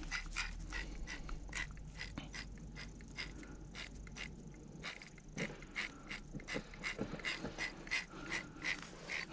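A small ice-fishing reel clicking in short irregular ticks, about three a second, while a hooked fish pulls on the line.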